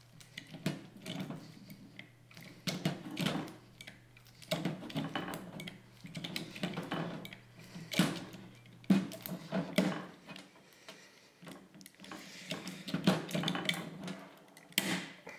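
Hand rivet gun squeezed repeatedly to set a pop rivet in a metal window regulator rail: irregular clicks and metallic clacks as the handles work and the jaws pull the mandrel, with a few sharper snaps.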